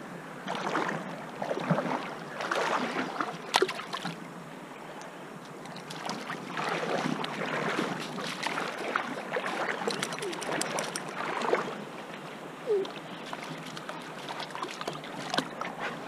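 Shallow river water splashing and flowing around a small child wading in it, in uneven swells, with a few sharp clicks of stones knocking together.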